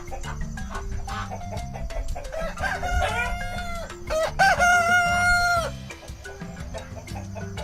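Rooster crowing over background music with a steady beat: two long calls in the middle, the second louder and held on one pitch before cutting off.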